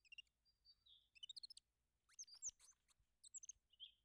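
Faint bird chirps: several short, high twittering phrases with gaps of quiet between them.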